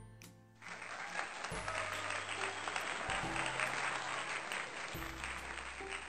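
Applause sound effect, starting about a second in and stopping near the end, over background music.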